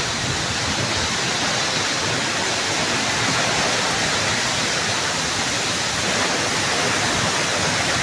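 A waterfall's falling water pouring onto rock, a steady, loud rushing noise.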